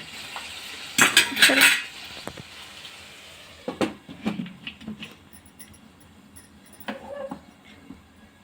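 A metal spoon scraping and clanking against a kadai while chopped tomatoes are stirred into the spiced oil. A quick flurry of strokes comes about a second in, then a few scattered clinks.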